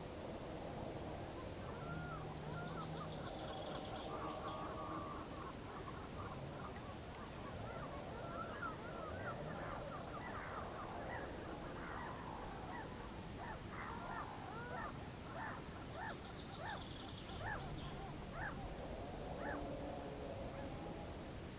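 Whooper swans calling, a flock giving many short, rising honking calls that come thick and fast from about a third of the way in.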